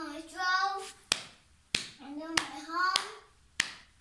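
A child singing in short phrases, with single sharp hand claps about every two-thirds of a second keeping time, five claps in all.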